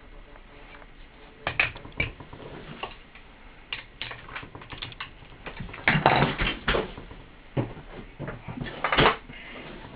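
Handling noise from a Dynaudio 24W100 woofer being moved about on a bench: irregular knocks, clatter and scrapes, loudest around six and nine seconds in.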